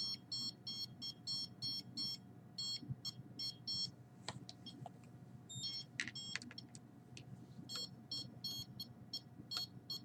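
Handheld electromagnetic field meter beeping its alarm in runs of short high-pitched beeps, about four a second, that stop and start again twice, signalling high readings that come and go. A few handling clicks fall in the pauses.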